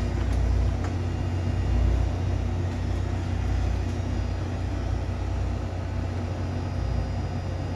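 Steady low rumble of the ship's engines running on standby as they warm up, heard from inside the wheelhouse.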